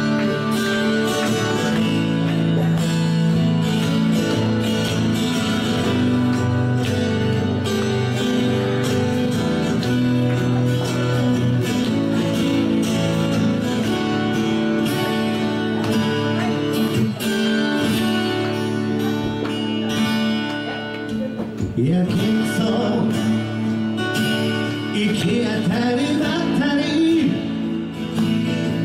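Two acoustic guitars playing a song together, steady strummed chords. A man's singing voice comes in about three-quarters of the way through.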